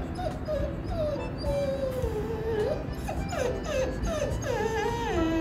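Jindo dog whining at a kitten hiding under the sofa: a long, wavering whine that rises and falls in pitch, dropping to a lower held note near the end.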